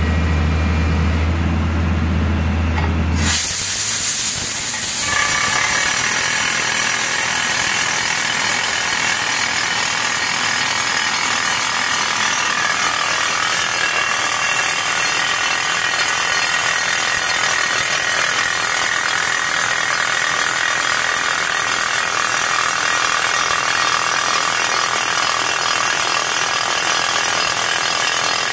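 Furukawa PCR 200 crawler rock drill: a low steady hum for the first three seconds, then the drill starts hammering into rock with a dense, rapid, continuous rattle while air blows rock dust out of the hole.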